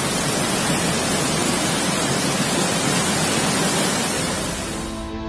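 Muddy floodwater rushing in a swollen river: a loud, steady, even rush of water. It fades out near the end as music begins.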